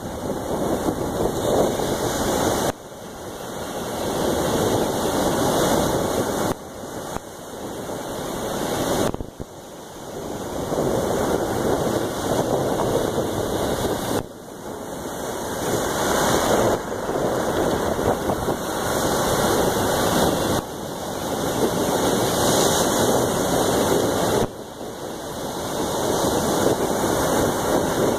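Ocean surf rushing onto a pebbly beach, mixed with wind on the microphone. It is a loud, even rush that drops suddenly every few seconds and then swells back up.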